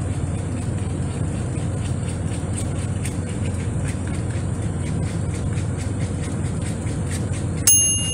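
A fork whisking a raw egg in a bowl, with light clicks a few times a second, over the steady low hum of an idling truck engine. Near the end, an air fryer chimes with one sudden high tone that holds on, the signal that it has finished preheating.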